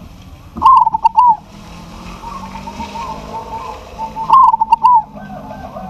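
Zebra dove (perkutut), a local wild-type bird, cooing: one loud phrase of quick staccato coos about half a second in and another about four seconds in, with softer cooing in between.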